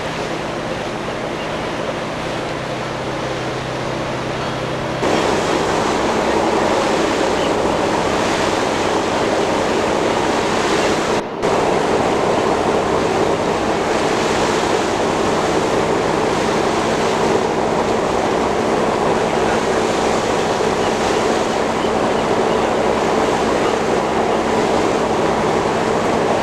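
Steady drone of a boat's engine under a rush of wind and water, heard from aboard the moving boat. It grows louder and noisier about five seconds in, and cuts out for a split second about eleven seconds in.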